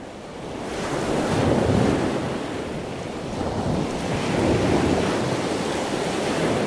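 Wind blowing across the microphone: a steady rush that swells and eases in gusts, louder about a second and a half in and again past four seconds.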